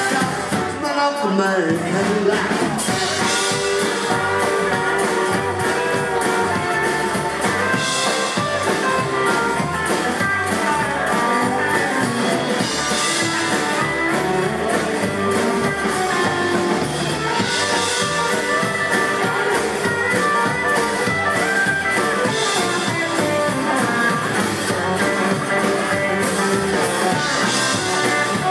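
Live rockabilly band playing an instrumental stretch: electric lead guitar, strummed acoustic guitar, plucked upright double bass and a drum kit at a steady dance tempo, with no singing.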